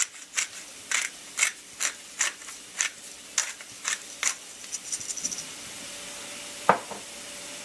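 Pepper mill grinding black pepper: a run of crisp ratcheting clicks, about two a second, for about five seconds. A single sharp knock comes near the end.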